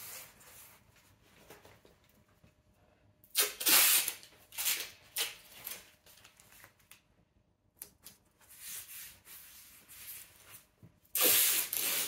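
Masking tape being pulled off the roll in a few noisy rips, the loudest about three seconds in and another near the end, with quieter rubbing and handling as the tape is smoothed onto the door between them.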